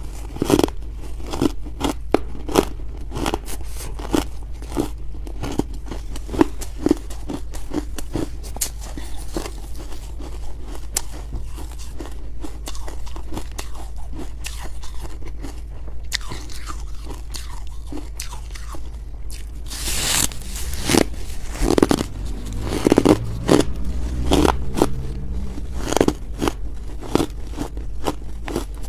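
Close-up crunching and chewing of crumbly freezer frost chunks, a dense run of sharp crackles, with a louder spell of bites about twenty seconds in. A low steady hum runs underneath.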